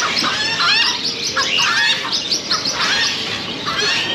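Many small birds chirping at once, a dense chorus of short, overlapping calls that sweep up and down in pitch.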